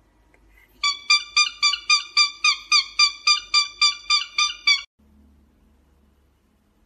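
Cockatiel calling in a fast run of short, identical chirps, about five a second, starting about a second in and stopping abruptly near the end.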